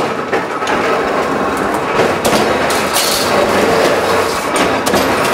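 Old mechanical guillotine shear for sheet metal running: a loud, dense mechanical racket with irregular clanks and knocks.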